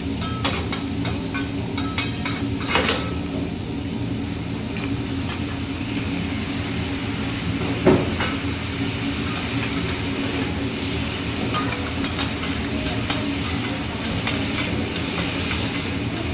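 Food sizzling on a hibachi griddle, with metal spatulas clinking and scraping on the steel; two louder knocks, about three seconds in and about halfway through.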